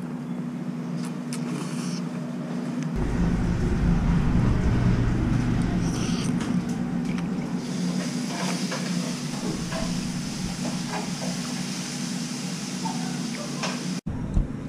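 Steady low hum of a small eatery, with a deeper rumble that builds about three seconds in and fades out by about eight seconds. A few light clinks of a fork and spoon against a ceramic bowl of noodle soup.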